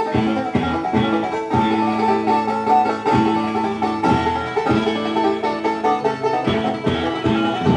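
Country-style music with a plucked banjo, playing back from a tape just recorded on a 1978 Yamaha TC-720 stereo cassette deck, a sign that the repaired deck records properly.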